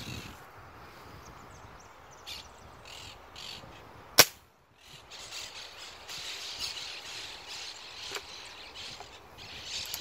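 A single sharp shot from a .25-calibre Benjamin air rifle about four seconds in. Parrots call a few times before it and squawk more busily after it.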